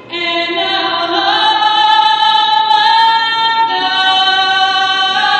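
A woman singing the national anthem solo, holding long notes that change pitch slowly from one to the next.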